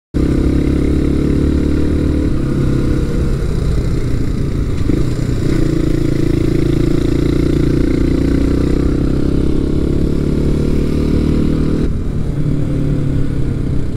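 Motorcycle engine running while riding along a road, its note holding steady with a few small rises and falls in pitch and an abrupt change about twelve seconds in.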